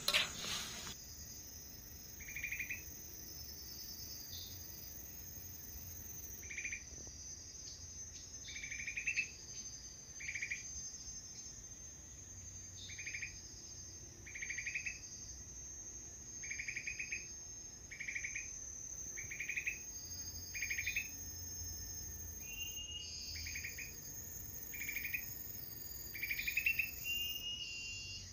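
Forest insects: a steady high-pitched drone with a short buzzing chirp repeated every second or two. A brief clatter of the metal ladle in the wok comes at the very start.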